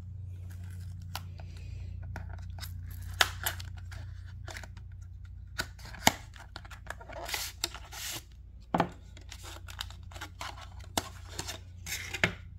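Cardboard SSD retail box being opened by hand: paperboard tearing and scraping as the box is opened and the inner tray slides out of its sleeve. Scattered sharp clicks and short rustles come as the drive is taken out and handled.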